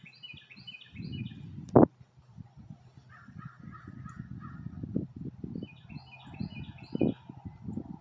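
Wild birds calling in winter woods, a crow among them: a quick run of high notes near the start and again about six seconds in, with a lower series of calls between. A low rumble runs underneath, and one sharp click sounds just before two seconds in.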